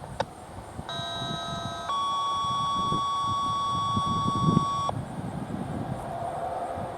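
Two-tone sequential paging tones sent over the radio to set off a warning siren. After a short click, one steady tone lasts about a second, then a higher steady tone holds for about three seconds and cuts off suddenly.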